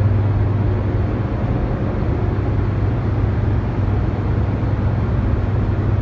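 Steady deep hum of a hydroelectric powerhouse's running generators, with a constant rush of machinery noise over it.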